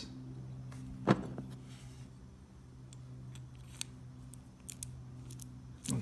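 Small metallic clicks and taps from a Honda ignition lock cylinder and its key being handled and slid back into the ignition housing: one sharper click about a second in, then a scatter of light clicks.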